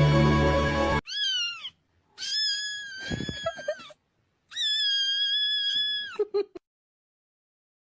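A cat meowing three times: a short, falling meow, then two long, drawn-out meows, the last one dropping in pitch at its end. Background music cuts off just before the first meow.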